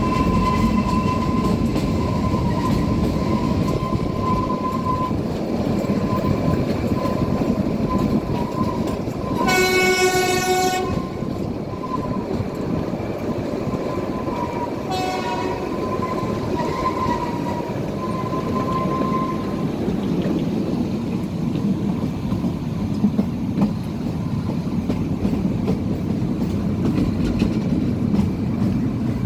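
Kalka–Shimla narrow-gauge toy train running with a steady rumble from its carriages. Its horn sounds once for a little over a second about ten seconds in, then briefly again about five seconds later.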